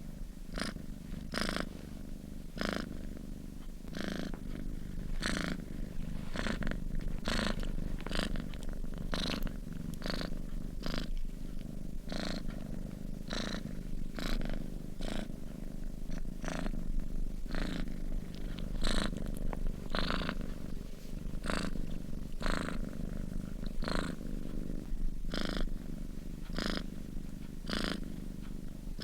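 A sleeping domestic cat purring steadily. A low rumble swells in a regular rhythm with its breathing, about one pulse every three quarters of a second.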